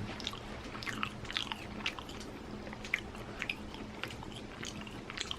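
Someone chewing a mouthful of raw chicken breast: faint, irregular wet clicks and smacks of the mouth.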